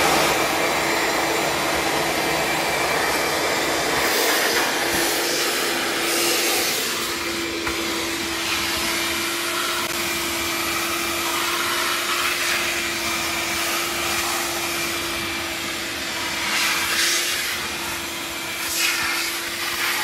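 Wet/dry shop vacuum running steadily, its motor giving a constant whine under a loud rush of air as the hose sucks up standing floodwater from a tile floor. The rush swells louder a few seconds in and again near the end.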